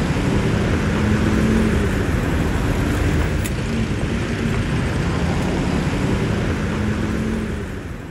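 Road traffic: a Hino coach pulling away and a light truck approaching, their diesel engines running with a steady low hum. The sound fades out near the end.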